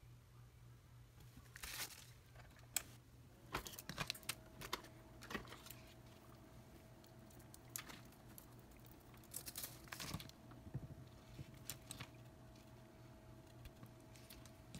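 Plastic parts bags and bubble wrap crinkling and rustling as they are handled, in scattered bursts with sharp clicks. A faint steady tone comes in about three and a half seconds in.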